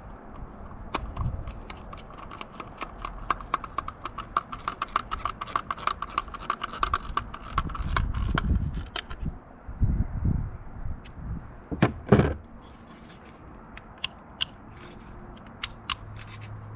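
Hand screwdriver turning a screw into a plastic Garmin fishfinder mount: a fast, even clicking of about five a second for several seconds, with a faint squeak. A single loud knock comes about twelve seconds in, followed by a few scattered clicks as the mount is handled.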